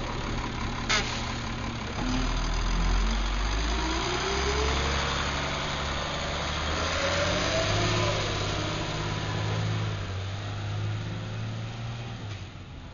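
Crane Carrier Company garbage truck's diesel engine running close by and picking up speed as the truck pulls away, its pitch rising twice. A sharp click about a second in.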